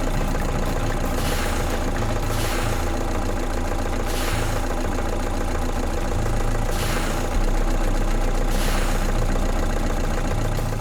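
Engine running steadily at idle, with a small change in its low hum about seven seconds in.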